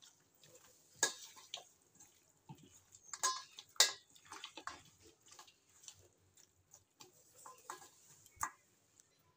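Hands working raw chicken pieces through a wet spice marinade in a stainless steel bowl: soft squelches and irregular clicks and knocks against the bowl.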